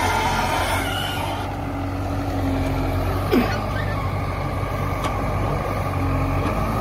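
Backhoe loader's diesel engine running steadily under load as the backhoe arm digs and swings a bucket of soil, with a brief knock about three seconds in.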